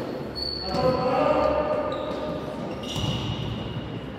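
An indoor ball game: a ball bouncing on a sports-hall floor, with shouting voices echoing in the hall.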